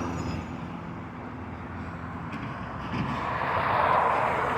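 Recycling garbage truck running in the street, its rumble growing louder toward the end.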